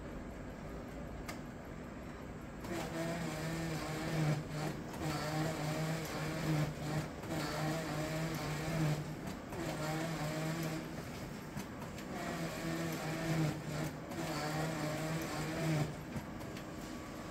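Kyocera TASKalfa 2552ci colour copier running with a loud, pitched mechanical drone. It starts about three seconds in, comes in stretches of one to two seconds with short breaks, and stops near the end. It is an abnormal noise that seems to come from the lower part of the machine.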